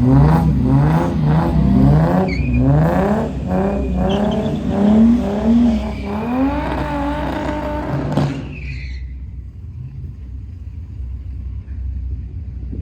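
Car engine revving over and over, rising in pitch and falling back about twice a second. About eight seconds in the revving stops and it falls to a low, quieter rumble.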